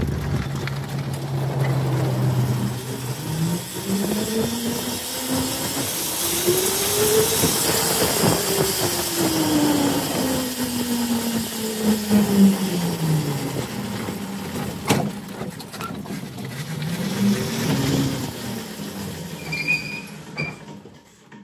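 The QS180 electric motor of a converted Yerf-Dog Spiderbox go-kart, whining as the kart drives off. It holds a steady low hum for the first few seconds, climbs in pitch as the kart speeds up to a peak about seven seconds in, then falls as it slows, and rises and falls once more near the end. Tyre and wind noise run underneath, with a single sharp click midway.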